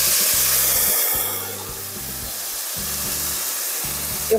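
Light beer poured into a hot pot of fried arborio rice and smoked sausage, hissing loudly as it boils on contact with the hot fat. The hiss eases after about a second and a half into a steadier, quieter sizzle.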